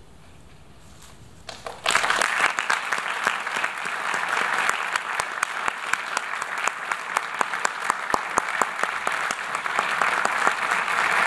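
Concert audience applauding at the end of a piece: a hush, then a few first claps, and about two seconds in the applause breaks out all at once into dense, steady clapping.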